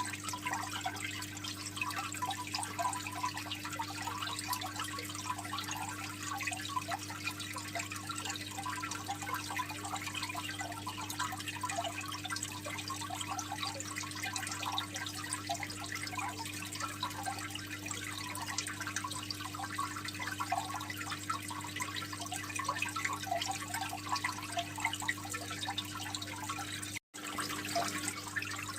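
Aquarium water trickling and splashing steadily into the tank, a dense patter of small drips, with a steady low hum underneath. The sound cuts out for a moment near the end.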